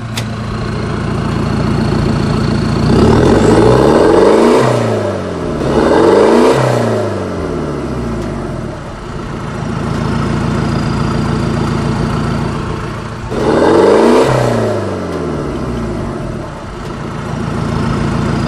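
Electronic engine-revving sound effect from a battery-powered toy Thar jeep: a steady synthetic drone that swells three times into loud, criss-crossing rising and falling revs, about three, six and fourteen seconds in.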